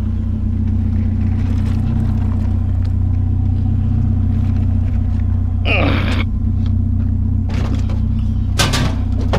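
A vehicle engine running with a steady low hum. A brief scraping sound comes a little before the six-second mark, and sharper clattering noises come near the end.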